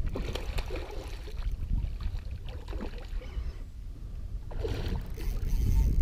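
Hooked redfish thrashing and splashing at the surface beside a kayak, in short irregular splashes over a low rumble of wind on the microphone.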